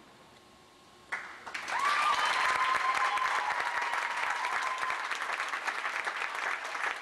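Audience clapping and cheering as the routine's music ends, breaking out suddenly about a second in after a short hush. A single long high note, a held cheer, rises above the clapping for about three seconds.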